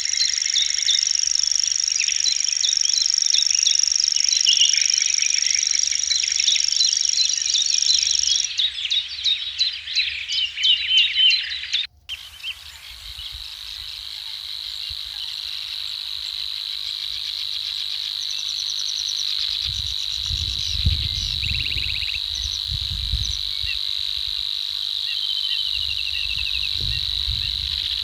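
Countryside ambience: a steady high insect drone with many birds chirping over it. About twelve seconds in, the sound cuts out briefly and is replaced by a steady, lower insect chorus with occasional calls. Low rumbles come in over the second half.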